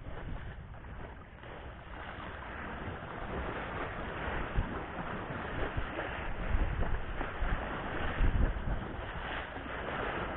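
Wind buffeting the microphone in low gusts over the steady wash of sea waves.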